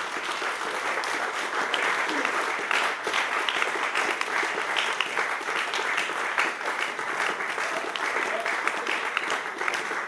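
Audience applauding steadily, a dense patter of many hands clapping.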